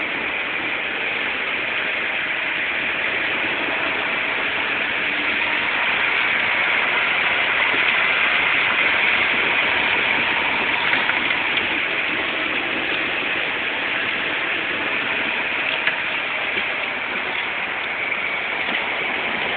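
Inside the cabin of a 1977 Porsche 930 Turbo under way in second gear: its air-cooled turbocharged flat-six running under a steady rush of road and wind noise. It swells toward the middle and eases off later. Heard through a phone's microphone.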